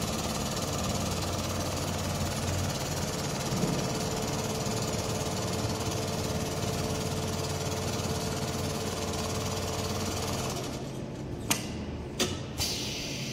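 Richpeace rotary-head CNC sewing machine stitching at speed: a rapid, steady needle hammering with a motor hum. It stops about three-quarters of the way through, and a few sharp clicks follow.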